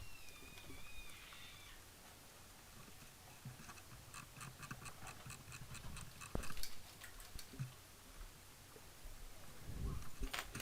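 Faint footsteps crackling through leaf litter and twigs in woodland, a scatter of small snaps and rustles with a slightly louder crack about six seconds in. A faint wavering whistle, like a bird call, sounds in the first second or so.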